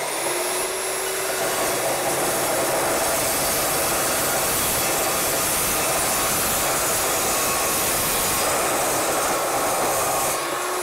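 DeWalt DW872 metal cutting chop saw with a 355 mm tungsten-carbide-tipped blade cutting through a metal tube: a loud, steady cutting noise over a high whine from the blade and motor. The whine climbs to full speed in the first second, and near the end it rises briefly and then begins to fall as the cut finishes.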